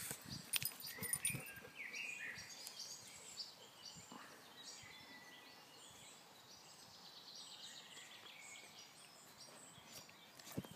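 Small birds chirping and calling, many short overlapping chirps. A handful of short sharp clicks in the first second and a half are the loudest sounds.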